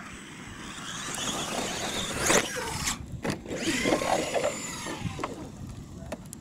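Radio-controlled monster truck's motor and drivetrain whining, rising and falling with the throttle. There is a sharp knock about two seconds in and another about a second later.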